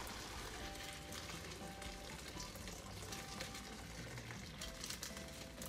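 Hot pasta water and pasta pouring from a pot into a stainless steel colander in a sink: a steady splashing hiss.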